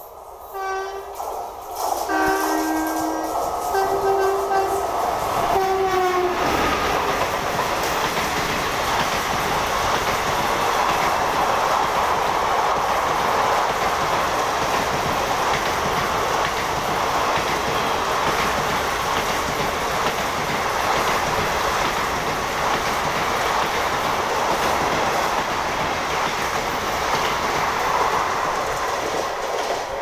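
Passenger train's horn sounding in several blasts as it approaches, then from about six seconds in the loud, steady rush and clatter of wheels and coaches passing at speed on the near track.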